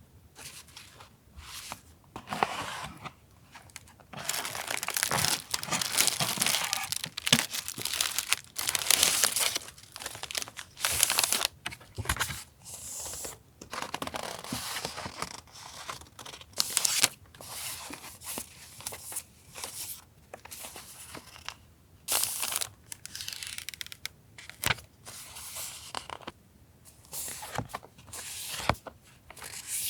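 Paper and plastic packaging of a journaling sticker-and-paper set being opened and handled: irregular rustling, crinkling and tearing, densest in the first half, then in shorter separate bursts.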